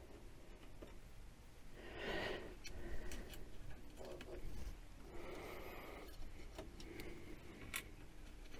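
Faint small clicks and soft rustles of plate screws and a hand tool being handled as the screws are started into their threads.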